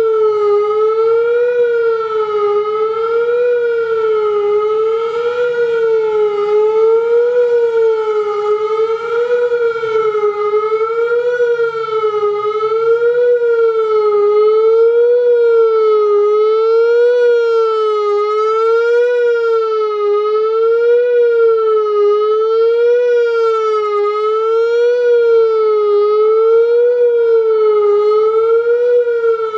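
Whelen WPS-3000 electronic outdoor warning siren sounding its fast wail, the attack signal: a loud tone rising and falling in pitch over and over, about once every second and a third.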